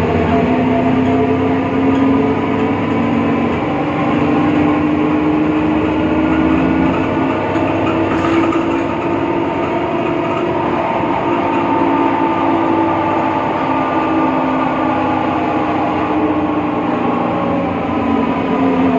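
Interior sound of a BredaMenariniBus Avancity Plus city bus under way, with its Deutz diesel and ZF Ecomat automatic gearbox running under a loud, steady whine that slowly rises and falls in pitch with road speed. The whine comes from a faulty differential. A short click sounds about eight seconds in.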